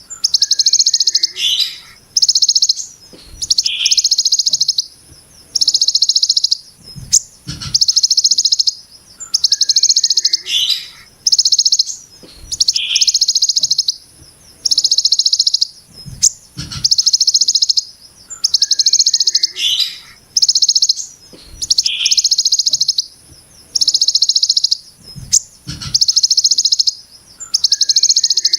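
Kolibri ninja, a sunbird, singing harsh, rapid buzzing trills, the 'brem ciblek gunung' phrase, each about a second long and repeated roughly every two seconds, with short lower chips between them. Faint low knocks sit under the song.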